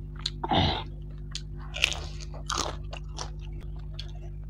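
Close-miked chewing and biting of spicy fried rohu fish, with wet mouth clicks and crunching. There is a louder crunch about half a second in and a couple more around two seconds.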